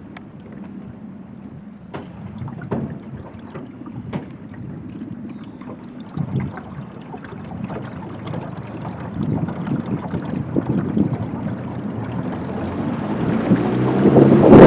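Boat motor running steadily at low speed under a rushing noise, with a few sharp knocks in the first few seconds; the noise grows louder towards the end.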